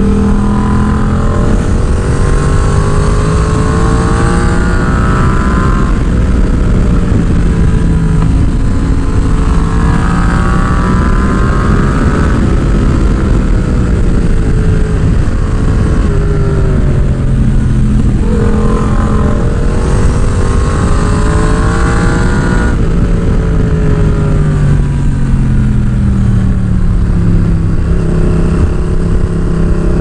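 Yamaha MT-07's parallel-twin engine through an AliExpress aftermarket exhaust, heard on board while riding: the engine note climbs under acceleration and drops back about four times as the throttle is rolled on and off.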